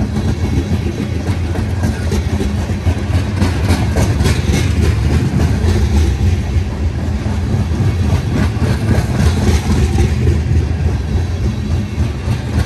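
Crude oil tank cars of a freight train rolling past: a steady rumble of steel wheels on rail, with repeated clicks as the wheels pass over rail joints.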